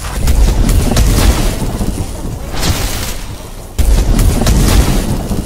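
Logo-reveal sound effects: a deep boom with a crackling rumble that fades over about three seconds, then a second boom that hits suddenly about four seconds in.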